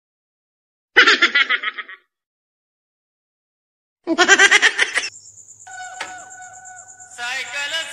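Edited-in comic sound effects over a silent track: two short bursts of rapid, pulsing, giggle-like laughter, about a second in and about four seconds in, with dead silence between. Then a thin held tone, and music comes in near the end.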